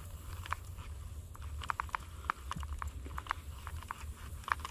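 Baitcasting reel being cranked in short, uneven turns while a frog lure is worked back, giving a run of irregular small clicks and ticks over a steady low background hum.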